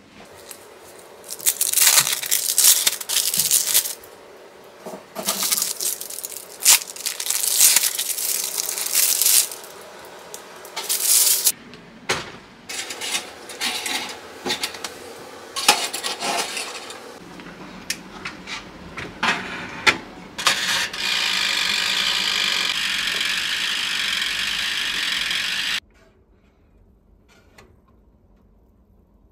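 Crinkling and rustling of plastic film as individually wrapped melting-cheese slices are peeled open, with scattered clicks and knocks. Later a steady hissing noise runs for about five seconds and cuts off suddenly.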